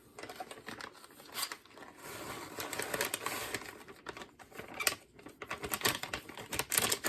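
Shredded cheddar cheese being added to a crock pot: crinkling, rustling and scattered light clicks.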